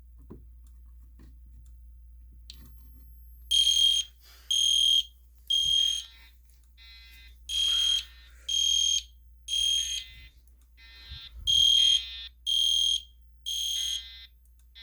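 EST Genesis fire alarm horn sounding code 3, the temporal-three evacuation pattern: after a few quiet seconds it gives three groups of three short, loud, high-pitched blasts, its horn covered with tape. A second, lower buzzy alert tone from the Genesis speaker strobe sounds between and under the horn blasts.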